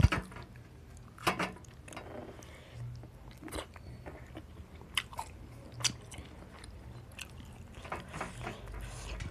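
A person chewing food close to the microphone, with scattered crisp crunches as bites are taken.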